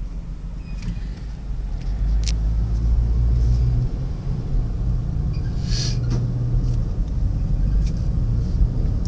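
Low steady rumble of a car driving, growing louder about two seconds in. A few faint clicks and a short hiss come near the middle.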